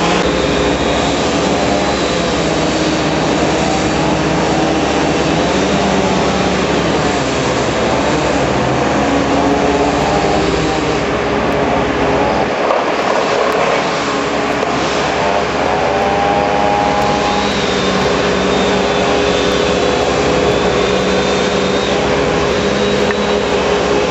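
Tree-removal machinery running loud and continuous: an engine drone under a steady tone, its pitch rising and falling as the load changes.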